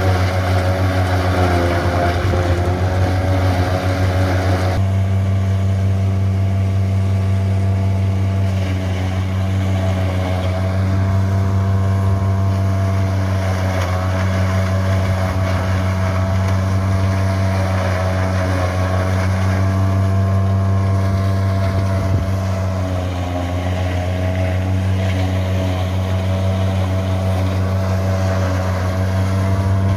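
Valmet tractor's diesel engine running steadily under load, driving a PTO forage chopper that is grinding dry corn stalks into feed. A loud, continuous drone that changes slightly about five seconds in.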